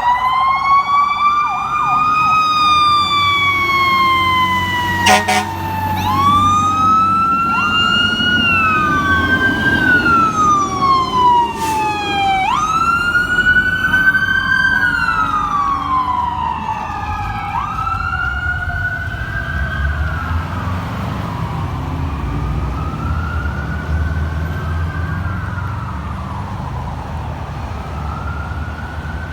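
Several fire apparatus sirens wailing together, each rising and falling out of step with the others, over the low rumble of the trucks' engines. Two brief sharp clicks come through partway in, and the sirens grow fainter over the last several seconds as the apparatus moves away.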